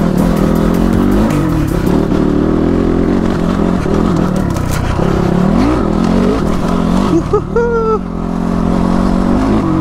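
Motorcycle engine running while riding, its pitch dipping and climbing again with throttle changes, with a brief rising-and-falling tone about seven and a half seconds in.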